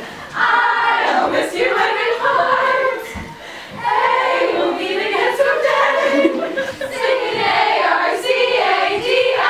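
A group of girls singing together without instruments, with a short break in the singing about three seconds in.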